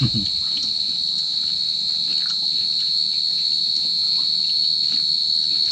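Steady high-pitched insect chorus, one continuous unbroken drone, with a few faint clicks.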